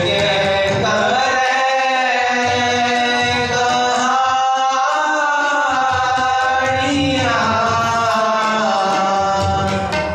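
Sikh kirtan: a boy sings a shabad in long held, sliding notes over two harmoniums, with tabla accompaniment. The tabla strokes are sparse in the middle and come back strongly near the end.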